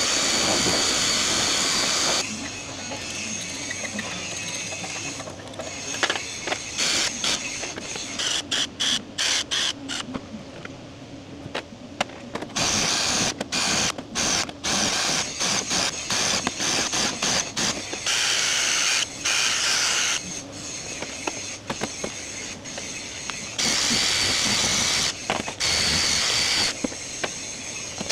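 Hissing jets of cleaning spray on the gearbox oil pump parts. There are several long blasts of a few seconds each, and a run of rapid short bursts in the middle.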